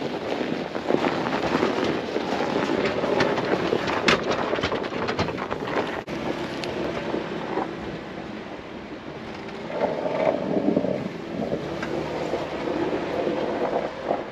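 Jeep Wrangler Rubicon driving a sandy dirt trail, its engine and tyres heard under wind rushing over the microphone, with a brief dropout about six seconds in.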